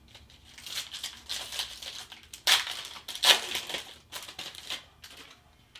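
Plastic foil trading card pack wrapper crinkling as it is handled and opened, in a run of irregular bursts, loudest about two and a half and three and a quarter seconds in.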